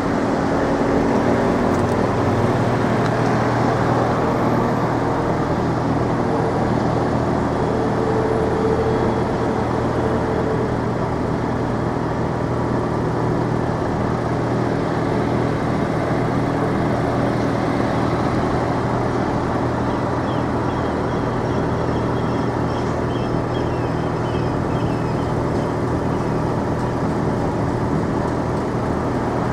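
Steady rumble of idling road-vehicle engines and traffic noise, with no crossing alarm sounding.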